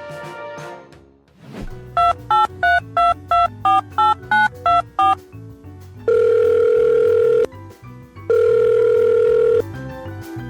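Electronic telephone tones over background music: a quick run of about eleven keypad beeps at changing pitches, then two long, steady ringing tones with a short gap between them.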